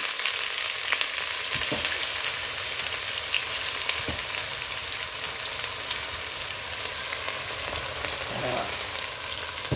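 Freshly added chopped onion and garlic sizzling in hot oil in a pot, a steady frying hiss that slowly grows quieter. A few more onion pieces drop into the oil near the end.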